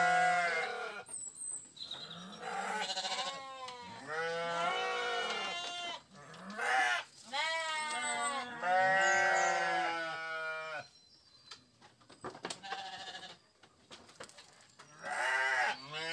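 A flock of sheep bleating, call after call, several overlapping, with wavering pitch. The calls go quiet for a few seconds past the middle, then resume near the end.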